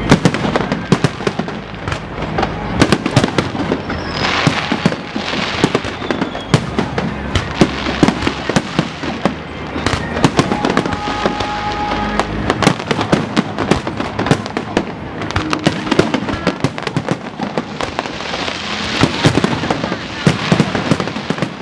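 Aerial fireworks display going off: a dense, continuous run of bangs and pops, several a second, with spells of crackling about four seconds in and again near the end.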